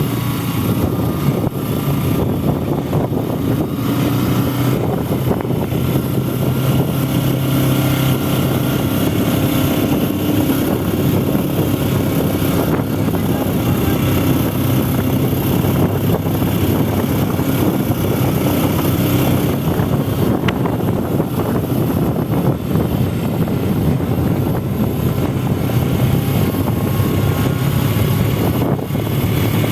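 Engine of a moving vehicle running steadily, a constant low hum with rushing wind noise over the microphone.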